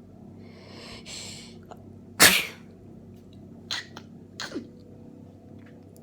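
A person with a head cold sneezing: a drawn-out breathy in-breath, then one loud sneeze about two seconds in, followed by two short, quieter sneezes.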